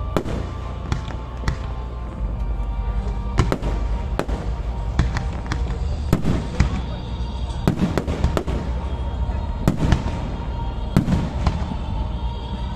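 Aerial fireworks display: shell bursts going off in an irregular series of sharp bangs and crackles, often less than a second apart, over a continuous low rumble.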